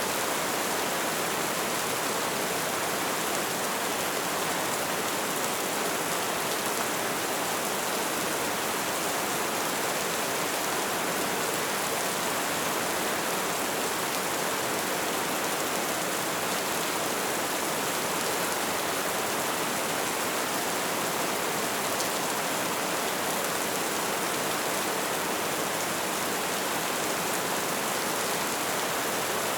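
Steady, heavy rainfall: a dense, even hiss with no single drops, thunder or other events standing out.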